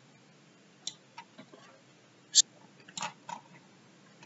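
A few scattered computer mouse clicks, sharp and separate, the loudest about two and a half seconds in.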